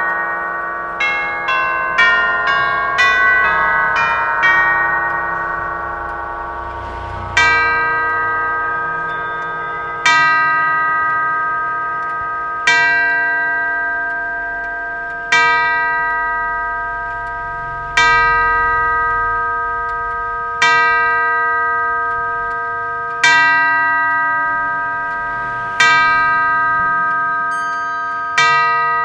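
Howard Miller 610-172 grandfather clock with an Urgos movement striking its nine brass chime tubes. It finishes a chime tune in quick ringing notes, then from about seven seconds in tolls the hour in loud single strikes about two and a half seconds apart, each ringing on and slowly fading.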